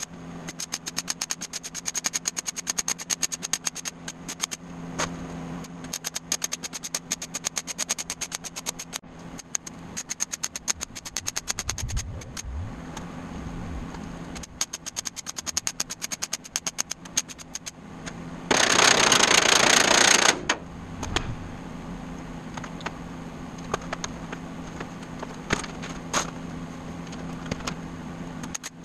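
Welding arc tacking stainless steel sheet, sped up by time lapse into a rapid crackling stutter of short bursts over a steady low hum. About two-thirds of the way through, a loud hiss lasts about two seconds.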